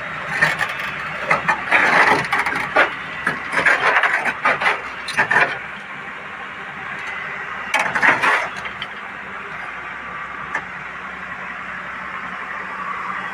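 Hyundai excavator's diesel engine running steadily, with clusters of sharp knocks and clanks over the first five seconds and again about eight seconds in.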